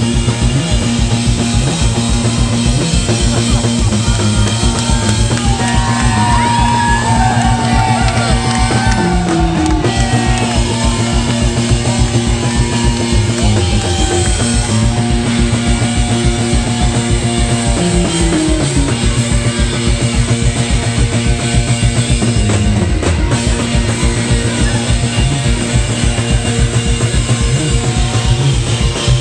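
Rock band playing live: a driving drum beat, bass and electric guitar, with sliding melody notes over it from about five to fifteen seconds in.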